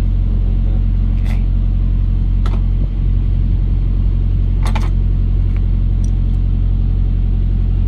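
Diesel truck engine idling with a steady low drone, with a few sharp metallic clicks as a wrench and the air governor are handled.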